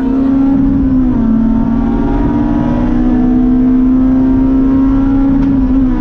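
Honda S2000's four-cylinder engine running hard at high revs on a track lap, heard from inside the cabin. The pitch dips a little about a second in, then climbs slowly as the car accelerates.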